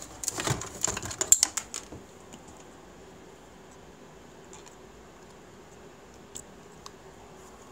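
A quick run of clicks and knocks from things being handled and set down on a hard table top in the first two seconds, the loudest about a second in, then faint room noise with a few scattered small ticks.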